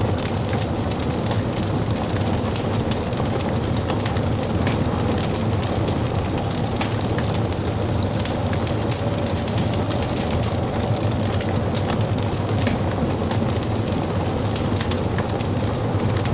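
Wood fire burning, with a steady low rumble of flames and frequent small, irregular crackles and pops from the burning wood.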